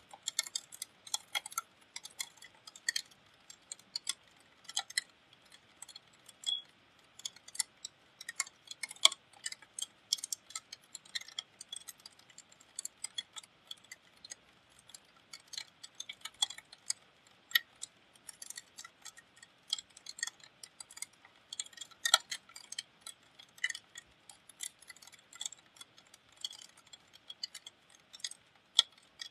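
Raindrops striking a hard surface close to the microphone: sharp, irregular ticks, several a second, over a faint hiss of rain.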